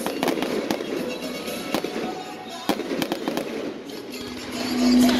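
Fireworks display: aerial shells going off in a string of sharp bangs and crackles, several in the first four seconds. Near the end, music with long held notes comes in and grows louder.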